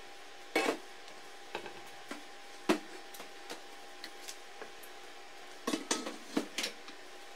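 Bare blasted metal parts of a BMW E30 rear subframe and control arm clanking and clinking against each other and the wooden workbench as they are handled into place. The knocks are irregular, with a quick run of several near the end.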